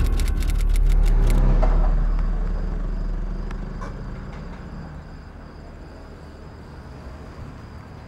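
Deep rumble of vehicle traffic that starts suddenly, is loudest for the first two seconds, then fades to a steady quieter hum. Ticking background music runs underneath and stops about a second and a half in.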